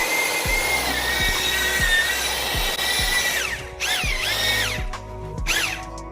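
Power drill running: its motor whines up, holds a steady pitch for about three seconds, winds down, then runs in two shorter bursts near the end. Background music with a steady beat plays underneath.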